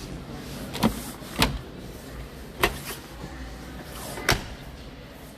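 Steady low background hum and noise, broken by four sharp clicks or knocks at uneven intervals.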